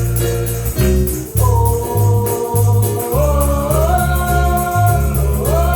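Gospel praise team singing a long held "Oh" over a band with bass and cymbals; the sung note steps up in pitch about three and four seconds in.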